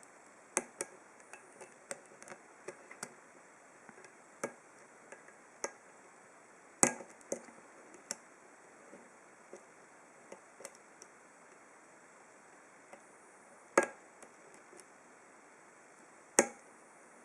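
Small irregular metallic clicks and ticks of a hook pick and tension wrench working the pins in the six-pin core of a Master Lock No. 19 padlock, with three sharper, louder clicks near the middle and toward the end.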